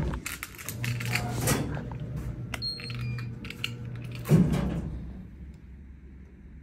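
Automated hospital scrub dispensing machine at work: clicks and clatter over a low motor hum for a few seconds, with a few short electronic beeps about two and a half seconds in, then a thud a little after four seconds as its door or drawer is handled.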